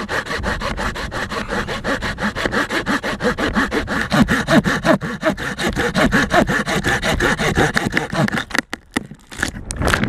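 Fiskars folding hand saw cutting through a tree trunk, fast, even strokes several a second. The strokes falter about eight and a half seconds in, and a few loud sharp cracks near the end mark the sawn-off top breaking away.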